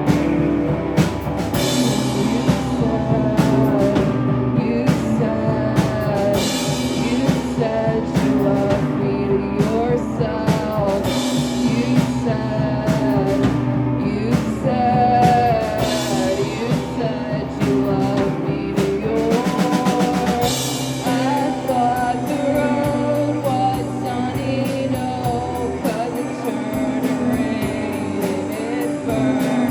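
Live rock band playing: drum kit and guitars carry the song under a wavering melody line, with a quick drum fill about two-thirds through.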